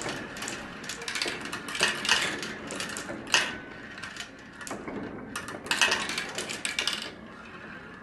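Marbles rolling and clattering down a marble run in dense runs of rapid clicks, with a sharp clack about three and a half seconds in and another busy run around six seconds in. The clicking thins out near the end.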